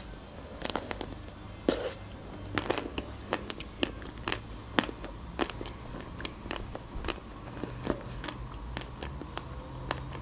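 Close-up mouth sounds of eating a chocolate-coated Magnum ice cream bar: irregular sharp clicks and crackles as the chocolate shell is bitten and chewed, with wet lip smacks.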